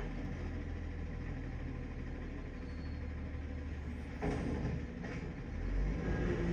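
Compressed-natural-gas automated side-loader garbage truck running with a steady low engine rumble, with two knocks about four and five seconds in as its arm sets the emptied recycling bin down on the curb and retracts. Near the end the engine grows louder as the truck pulls away.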